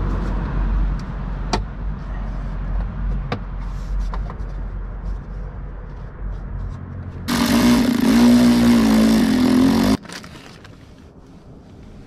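Cordless drill running for about three seconds, its motor whine wavering as it drives a fastener, then stopping abruptly. Before it, a low rumble with scattered light clicks and knocks as plastic trim and hardware are handled under the car.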